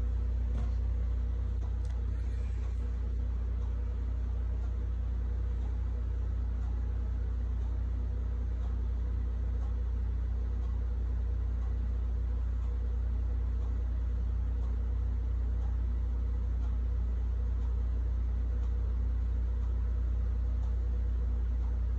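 Steady low electrical hum with a faint higher buzz, unchanging throughout, from the small speaker wired by aux cord to the portrait display instead of the portrait's soundtrack: something is wrong with the audio setup.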